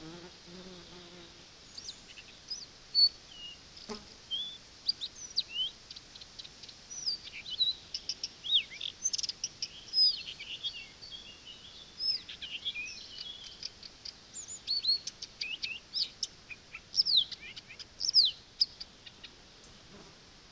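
Small birds chirping: many short high chirps and quick sliding whistles in rapid, irregular succession, starting about two seconds in and dying away near the end. A single click sounds about four seconds in.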